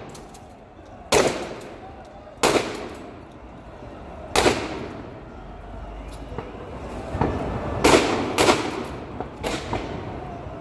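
Fireworks going off: about five loud, sharp bangs at irregular intervals, each with an echoing tail, two of them close together near the end, over a background of crowd noise.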